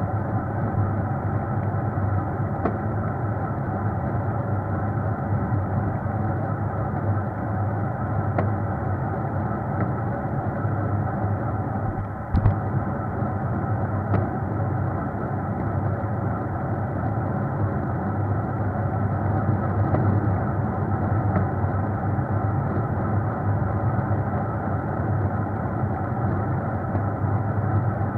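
Vehicle moving along a road, a steady low running drone of engine and road noise, with a short knock about twelve seconds in.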